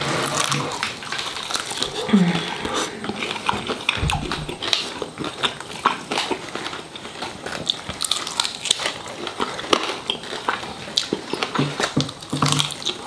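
Close-miked eating: biting into and chewing crispy dry-rub lemon pepper chicken wings, a dense run of small crunches and wet mouth clicks.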